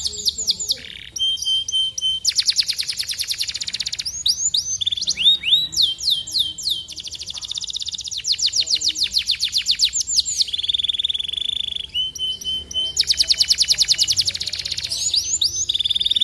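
Domestic canary singing a continuous rolling song of repeated-note phrases: fast trills alternating with runs of swooping notes, and a steady held tone about two-thirds of the way through.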